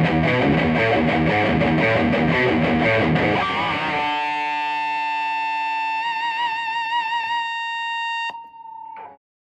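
Distorted electric guitar played through a Peavey Bandit 112 combo amp: busy chordal riffing, then about four seconds in a single held note with vibrato, which stops abruptly near the end and leaves a brief faint tail.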